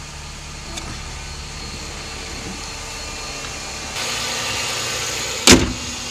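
Chrysler 300 engine idling steadily on its first run after an oil change, growing somewhat louder about four seconds in, with one sharp, loud thump about five and a half seconds in.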